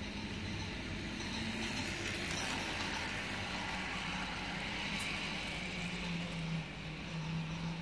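A toy train running on plastic track and passing close by, its small motor whirring and its wheels and wagons clattering over the track. The clatter is loudest about two seconds in, then settles to a steady run.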